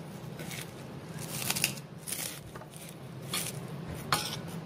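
Crisp krupuk crackers being bitten and chewed: about five short crunches spread through a few seconds.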